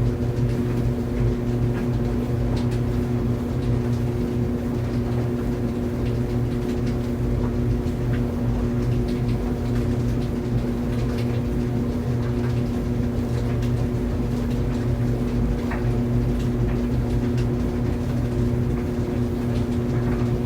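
Clothes dryer running: a steady motor hum over a low drum rumble, with faint scattered ticks throughout.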